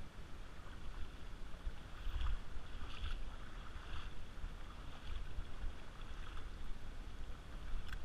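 Wading steps through shallow river water over gravel, a short splash about once a second, over a low rumble on the microphone.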